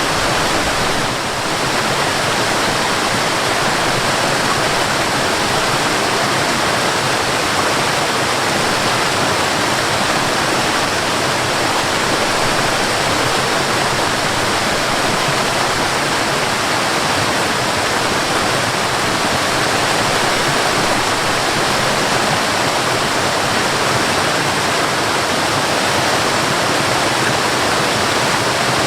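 Mountain waterfall: water falling and splashing in a loud, steady rush.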